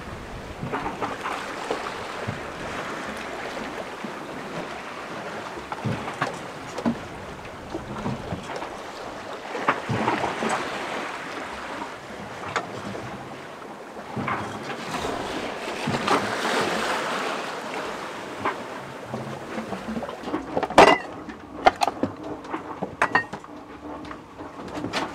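Ocean waves rushing and breaking along a sailboat's hull in rough seas, with wind, rising in surges as swells pass. Near the end come a series of sharp knocks and rattles.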